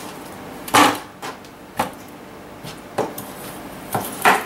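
Knife chopping hard frozen banana on a plastic cutting board: about six sharp, irregular knocks of the blade going through and hitting the board, the loudest about a second in.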